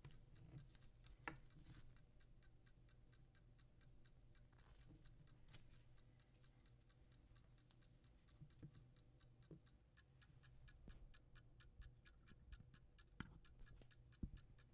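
Faint, steady ticking of an antique fusee pocket watch movement, about five beats a second, showing the restored watch running. A few light knocks sound now and then.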